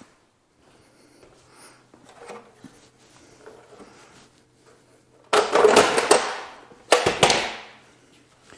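Faint shuffling, then two loud clattering bursts, the first lasting about a second and the second shorter, as a folding sawhorse with metal legs is handled and set down.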